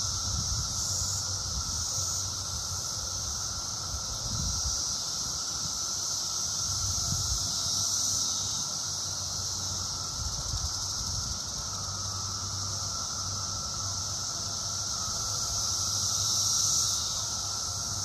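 Chorus of 17-year periodical cicadas, mainly Cassin's periodical cicada (Magicicada cassini) as a steady high buzz that swells twice, with some pharaoh cicadas (Magicicada septendecim) calling lower. A low rumble comes and goes underneath.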